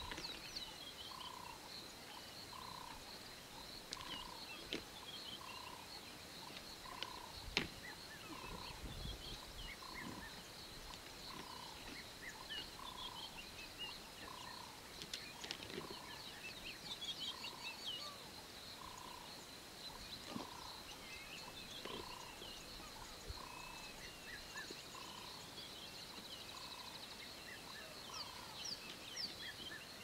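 Bushveld ambience: a bird or frog repeats one short low note a little more often than once a second, over a steady high insect drone and scattered bird chirps, with a few sharp clicks.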